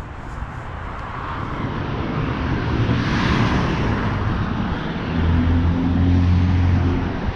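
Street traffic: a car passing, its tyre and engine noise swelling to a peak about three seconds in and then fading, followed by a steady low engine hum near the end.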